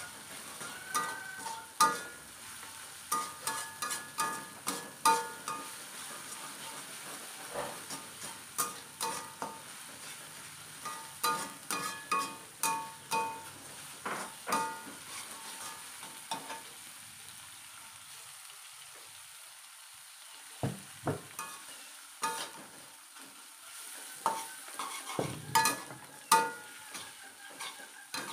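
Slotted spatula scraping and clanking against a steel wok during a stir-fry, the strikes ringing briefly, over a steady sizzle of food frying in oil. The clanking pauses partway through, then resumes with a few heavier knocks.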